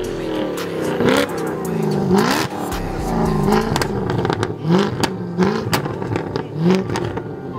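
Straight-piped Jaguar F-Type engine being revved over and over in short blips, each a quick rise in pitch, with sharp pops from the exhaust between the revs.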